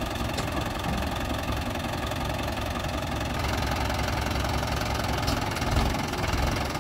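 Mahindra 575 DI XP Plus tractor's four-cylinder diesel engine idling steadily. It gets a little louder from about halfway through.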